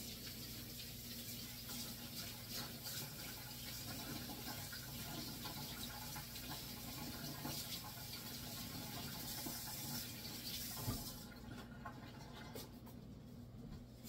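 Kitchen sink tap running while sticky bread dough is rinsed off hands, water splashing into the sink. The flow stops about eleven seconds in.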